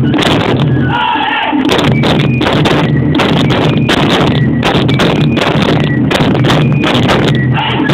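Ensemble of Japanese taiko drums beaten with sticks in a fast, driving rhythm of many strikes a second. There is a short break about a second in.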